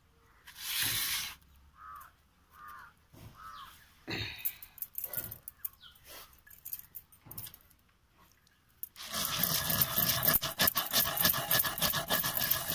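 Soaked rice scraped and dropped by hand into a clay pot, with scattered scrapes and clicks. From about nine seconds in, a dense, rough grinding and scraping as the rice is crushed against the clay pot with a pestle.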